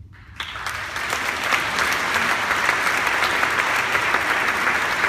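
Audience applause breaking out about half a second in, a dense patter of many hands clapping that builds quickly and then holds steady.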